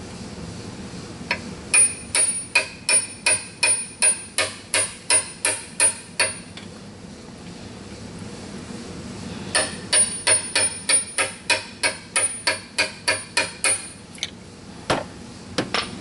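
Hammer tapping a seal driver to drive a new crankshaft oil seal into its bore: two runs of quick, even, ringing metal taps, about three a second, with a pause between them, then a few single taps near the end.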